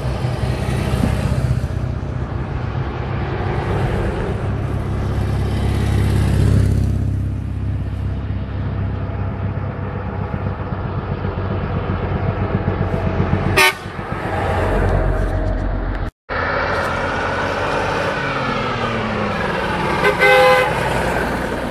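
Old vehicles driving past one after another: a sidecar motorcycle's engine, then truck engines, one falling in pitch as it passes. A horn toots briefly near the end.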